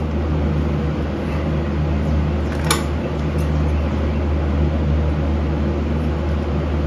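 Steady low mechanical hum, with a single light click a little under three seconds in.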